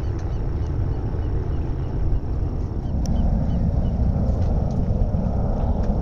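Wind buffeting the microphone, heard as a steady low rumble that grows a little heavier about three seconds in.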